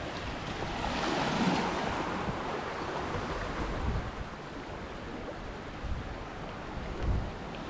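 Ocean waves breaking and washing in, a steady rushing that swells about a second in. Wind buffets the microphone now and then.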